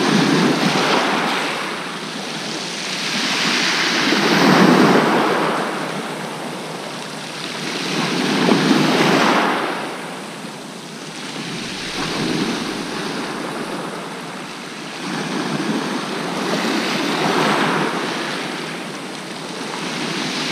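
Small sea waves breaking and washing over a shingle beach, the surf rising and falling in surges about every four seconds.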